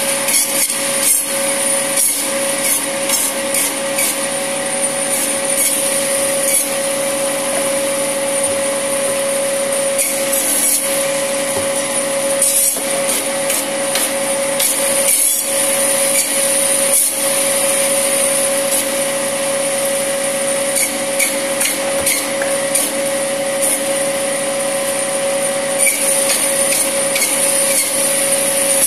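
La Minerva electric meat band saw running with a steady whine, its blade cutting through mutton ribs and bone in many short, irregular cuts as pieces are fed through.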